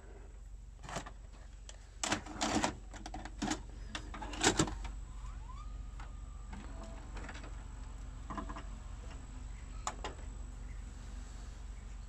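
LG GC480W VHS VCR taking in and loading a cassette: a run of sharp clicks and clunks from the tape transport, then a motor whine that rises about five seconds in and holds steady as the tape is threaded and starts to play.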